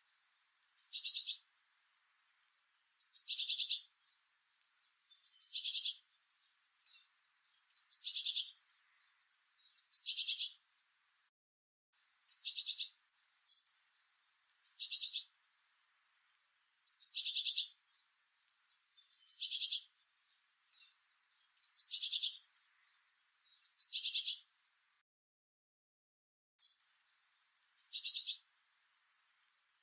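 Blue tit repeating a short, high, fast trilled phrase, about one every two seconds, a dozen times, with a longer pause near the end.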